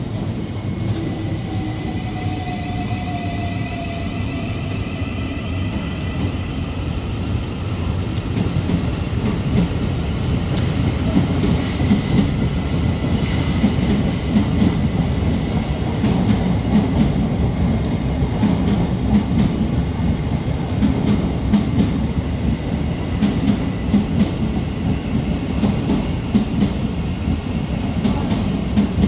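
Thameslink Class 700 electric multiple unit running in along the platform. A falling motor whine comes first, then the rumble grows, with wheels clattering over rail joints and some wheel squeal.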